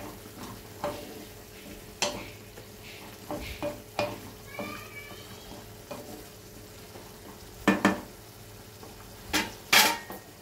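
A wooden spatula stirs cauliflower florets and potato pieces in a nonstick kadai, scraping and knocking against the pan over a low sizzle. The loudest knocks come near the end.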